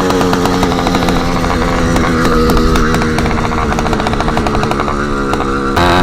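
Motorized bicycle's small engine running loud with the tip of its exhaust removed. Its pitch sags a little near the end, then the sound jumps louder as the throttle opens.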